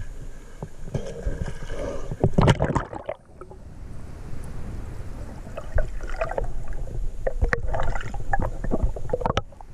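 Splash as the camera goes underwater about two and a half seconds in, then muffled underwater water noise with gurgling bubbles and a few knocks from swimmers moving through a submerged rock tunnel, heard through a GoPro inside a waterproof housing.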